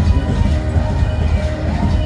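Loud music with strong bass, played over a PA system.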